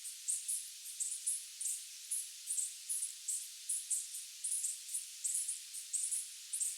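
Night insects chirping in short, high-pitched pulses, about two to three a second, over a steady high hiss of more distant insects.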